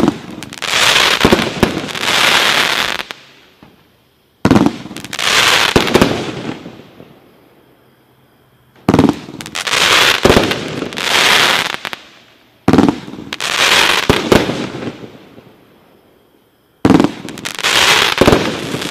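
Consumer aerial fireworks going off one after another: five separate shots about four seconds apart. Each opens with a sharp bang and is followed by two to three seconds of crackling hiss that dies away.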